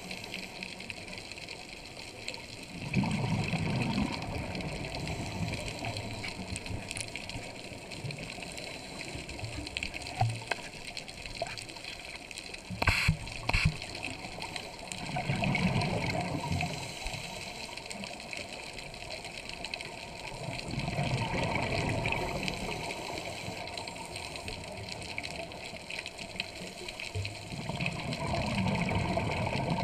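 Scuba regulator breathing underwater, heard through a camera housing: exhaled bubbles come in about four low bursts of a second or two each, over a steady watery hiss. A few sharp clicks sound about 13 seconds in.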